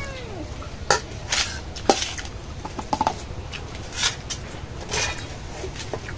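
Stainless steel spoon clinking and scraping against steel bowls and plates as rice is served, in scattered short knocks and scrapes.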